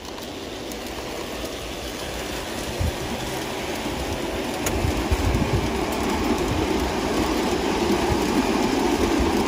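G scale model train running along outdoor garden track: a steady rumble of wheels on rail that grows gradually louder as it approaches.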